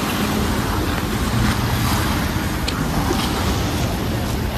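Steady rushing noise of wind buffeting the microphone, with a low rumble underneath.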